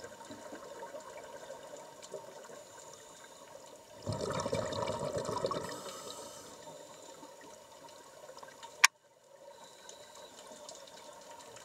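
Underwater scuba ambience: a diver's regulator exhaust bubbles gurgling, with a louder rush of exhaled bubbles lasting under two seconds about four seconds in. A single sharp click comes near the end.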